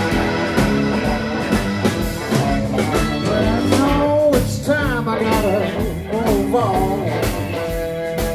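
Live blues-rock band playing an instrumental passage between verses. A lead line with bending notes runs over a steady drum beat and bass.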